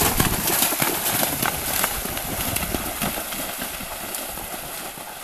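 Water splashing with many quick, irregular splashes, slowly fading away.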